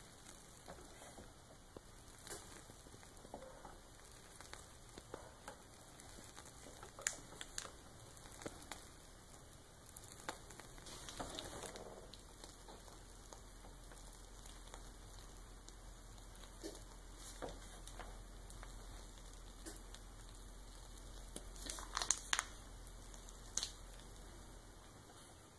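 Faint crinkling of a plastic piping bag being squeezed to pipe buttercream, with scattered small clicks and a short cluster of them near the end.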